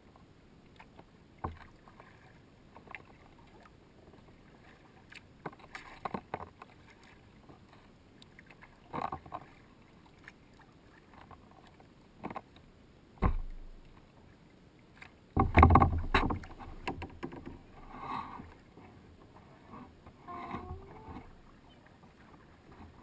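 Kayak paddling close to the deck: paddle strokes splashing now and then, with sharp knocks of the paddle against the kayak. The loudest splashing and knocking comes about two-thirds of the way through.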